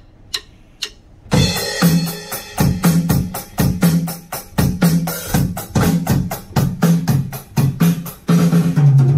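Drum kit played in a steady groove: two sharp clicks, then the beat starting about a second in, with a run of low drum hits near the end.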